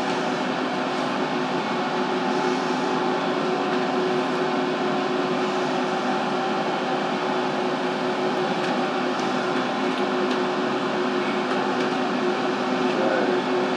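Steady machine hum and whir with several constant tones, unchanging throughout, from running projection-booth equipment.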